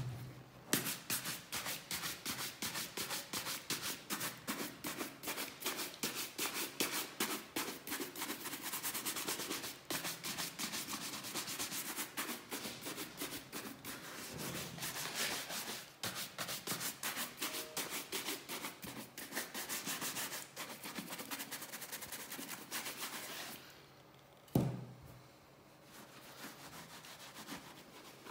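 Burgol horsehair polishing brush swept quickly back and forth over smooth leather sneakers, about three strokes a second, buffing the freshly applied shoe cream to a shine. Near the end one sharp knock, then a softer rubbing of a polishing cloth over the leather.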